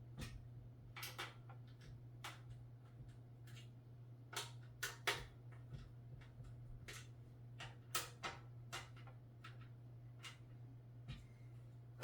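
Irregular light clicks and scrapes as the thumb screws holding a power supply in a steel PC case are turned in by hand, with a cluster of sharper clicks about five seconds in, over a faint steady low hum.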